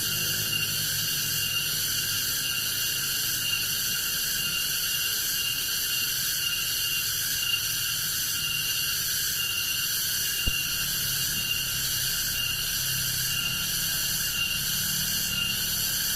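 Steady chorus of forest insects trilling in several high bands at once, with one sharp click about ten seconds in.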